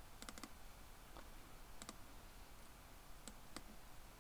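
Faint computer mouse clicks: a quick run of three near the start, a pair about two seconds in, and two single clicks after that, against quiet room tone.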